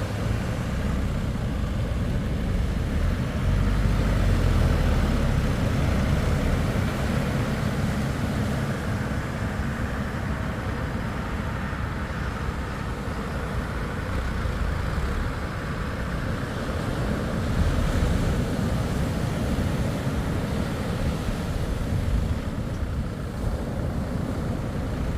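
Steady rush of surf and gusting wind on the microphone, mixed with the running of outboard engines on a catamaran ski-boat just launched off the beach.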